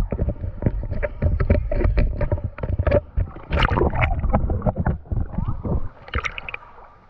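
Water splashing and sloshing around a swimmer's handheld camera as it goes under the surface, with muffled underwater gurgling. It gets quieter near the end.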